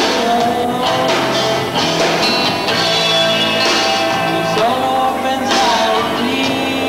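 A rock band playing live, with electric guitars over a drum kit.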